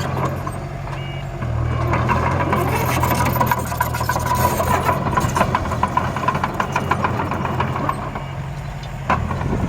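Diesel engine of a dump truck or bulldozer running, with rapid clanking and rattling over the engine. The engine picks up about a second and a half in and eases off near the end.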